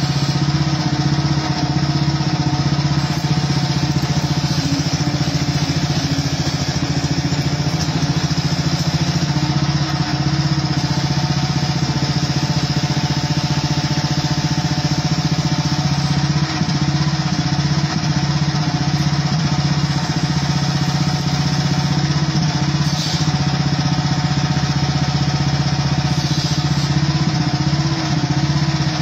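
Hightop HT10 mini excavator's engine running steadily under working load as the boom and bucket dig, heard loud and close from the machine itself.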